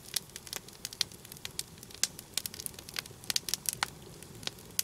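Log campfire crackling, with irregular sharp pops several times a second.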